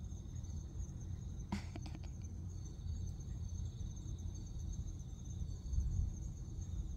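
Insects chirring steadily in two thin, high tones over a low background rumble, with one short voice-like call about a second and a half in.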